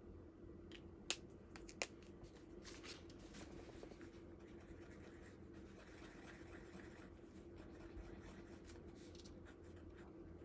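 Stampin' Write marker scribbling faintly on scratch paper, its ink partly dried out, after two sharp clicks about a second in.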